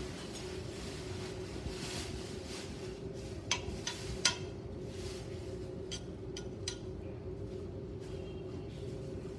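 Metal spoon clinking against the side of a stainless steel pot while stirring glass noodles in broth: a few sharp clinks in two clusters, one about three and a half seconds in and another about six seconds in. A steady low hum runs underneath.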